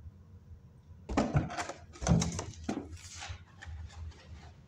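Knocks and scraping from a cardboard microwave box being handled, in two main bouts about a second and two seconds in, followed by a few lighter taps.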